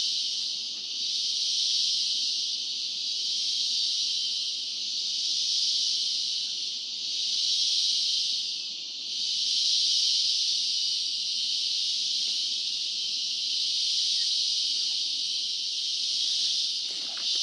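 A chorus of insects droning: a dense, high hiss that swells and fades about every two seconds.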